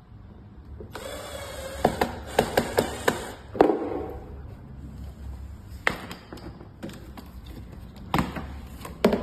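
Sharp metal clicks and knocks from fitting a go-kart safety belt and its hardware: a quick run of clicks with rustling about two seconds in, then single knocks spaced out over the rest.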